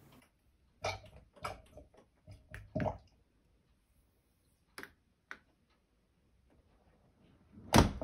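Several short clicks as buttons on a Neff dishwasher's control panel are pressed to set a short wash programme. Near the end the dishwasher door is pushed shut with a louder thud.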